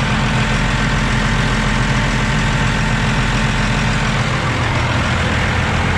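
Grumman truck's engine running steadily, a loud, even low drone that shifts slightly about four seconds in.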